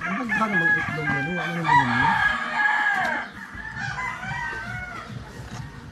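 A rooster crowing: one long, loud call that falls in pitch at its end about three seconds in, followed by fainter, shorter calls.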